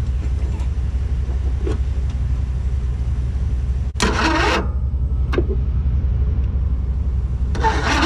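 Troy-Bilt riding mower engine running steadily on starter fluid, with a short loud burst of noise about four seconds in and a sharp click about a second later. The owners put its rough running and backfiring down to an intake valve not seating.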